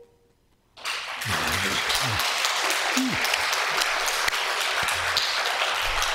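Congregation applauding, starting about a second in after a brief hush. A few voices call out over the clapping early in the applause.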